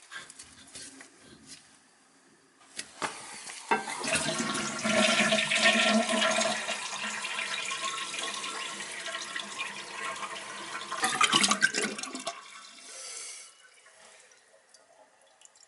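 Toilet flushing: a rush of water that starts suddenly about four seconds in, runs for about eight seconds and then trails off.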